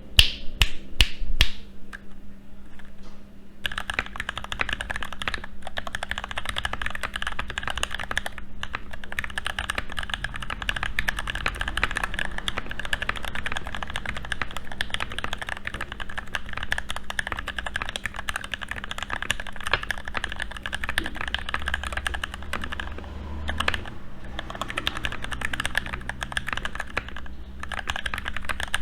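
Mechanical keyboard being typed on: an NK65 Entry Edition with Gateron Ink Black V2 linear switches on an aluminium plate, transparent OEM-profile keycaps and greased plate-mounted stabilisers. A few separate keystrokes, a pause of about two seconds, then fast continuous typing with a few brief breaks.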